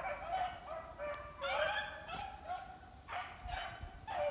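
A pack of beagles baying in full cry on a running rabbit's track, several hounds' voices overlapping in a string of calls with brief gaps.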